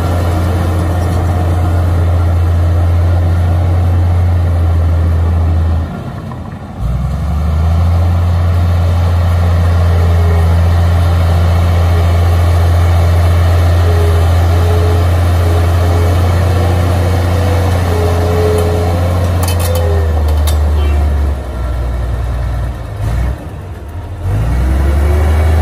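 Komatsu D53A crawler bulldozer's diesel engine running steadily under load as it pushes soil with its blade, a loud low drone. The sound drops briefly about a quarter of the way in and twice near the end.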